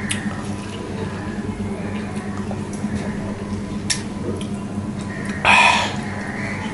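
Close-miked wet eating sounds as a lime wedge is squeezed by hand over a steel plate and sucked. There are small sharp clicks, and a short loud slurp about five and a half seconds in, over a steady low hum.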